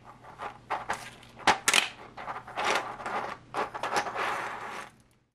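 Segments of a printed plastic flexi phoenix clicking and rattling as it is peeled by hand off a flexible build plate, with irregular clicks and scraping rustles.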